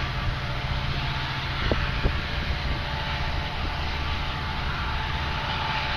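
Steady low rumble and hiss of outdoor background noise with a faint steady hum, the low end buffeting unevenly like wind on the microphone.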